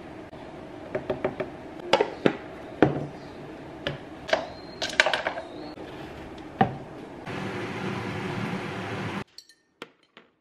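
A scoop and glass container tap and clink against a plastic blender jar, and the lid knocks into place. About seven seconds in, the countertop blender motor runs steadily for about two seconds and then cuts off abruptly.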